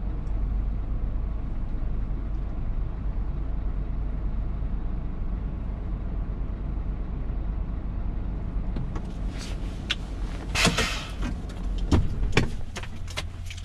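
Steady low drone of a Scania R truck's engine heard inside the cab. From about nine seconds in comes a run of sharp clicks and knocks, with a short hiss a little before eleven seconds and the loudest knock near twelve seconds.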